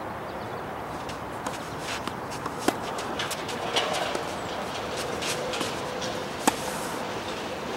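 Tennis shoes stepping and scuffing on the court surface over a steady outdoor hiss. A sharp pop comes a little under three seconds in, and a louder one near the end is the racket striking the ball on a serve.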